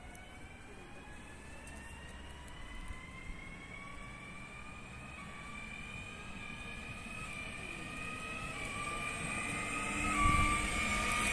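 Electric multiple unit's traction motors and inverter whining, several tones rising slowly in pitch and growing louder as the train accelerates toward the listener. A brief low rumble about ten seconds in.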